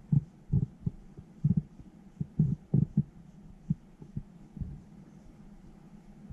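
A cat licking a dog's head close to the microphone, heard as soft, uneven low thumps, several a second at first, thinning out and stopping about two-thirds of the way through. A steady low hum runs underneath.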